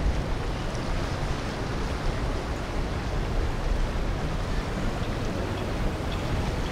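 Boat traffic on the water: a steady low engine rumble mixed with the wash of water, and wind on the microphone.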